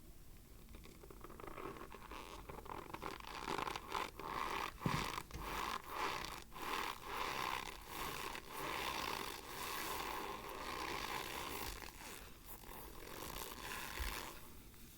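Close-up crunching of Argo cornstarch: a continuous gritty, rasping scrunch full of irregular crackles. It builds up about a second and a half in and dies away near the end.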